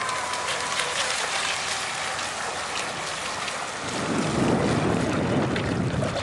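Outrigger RC racing boat's brushless electric motor whining, its pitch falling as it fades away in the first second, then a steady rushing noise that grows louder about four seconds in.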